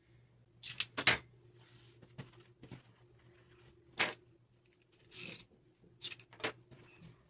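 Scattered taps, clicks and short rustles of hands handling and turning a felt craft piece on a wooden tabletop, the loudest about a second in, over a faint steady low hum.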